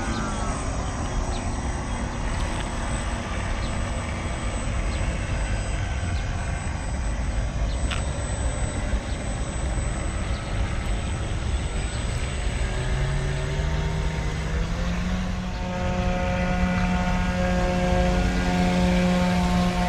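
Motors of a radio-controlled scale model catamaran ferry running over a steady rushing background. About two-thirds of the way through, a humming tone rises in pitch and grows a little louder, then holds steady.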